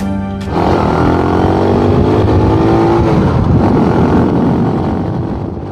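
Motorcycle engine revving hard, its pitch slowly climbing, cutting in about half a second in and fading out near the end.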